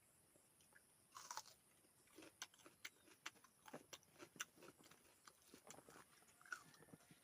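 A person chewing and biting food close to the microphone, with quiet crunchy clicks and mouth sounds throughout and a slightly longer crunch about a second in.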